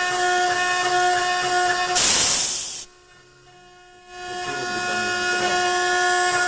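Creostamp Nuova Professional 600 CNC machine running with a steady multi-tone spindle whine as it machines brass. About two seconds in a loud hiss cuts in for under a second, then the sound drops low for about a second before the whine builds back up.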